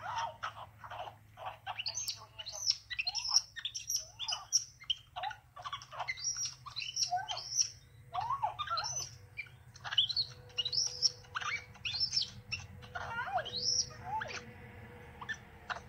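Baby capuchin monkey chirping and squeaking in a rapid, unbroken run of short high calls, many sliding up or down in pitch: its excited greeting to its owner.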